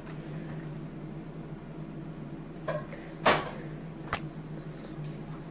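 Hands stretching and working homemade slime, with one short sharp snap a little over three seconds in and a fainter click about a second later, over a steady low hum.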